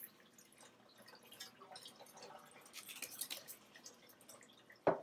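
Butter, onion and garlic in a skillet crackling and ticking softly as they cook, the crackles coming in small clusters, with a short knock near the end.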